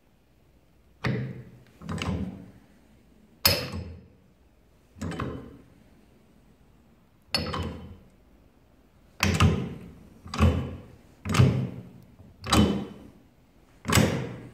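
Sacol MD 63/40 overrun hydraulic damper being worked by hand through a bar in its towing eye, as a function test after overhaul. About ten heavy metallic clunks at uneven intervals, each fading over about half a second.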